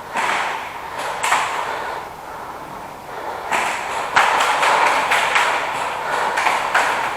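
Airsoft guns firing: a few sharp shots in the first second and a half, then a dense run of rapid shots from about three and a half seconds in.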